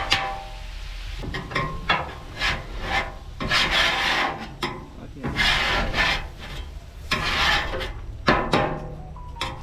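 Metal spatula scraping across the steel top of a Blackstone flat-top griddle in repeated strokes, about one a second.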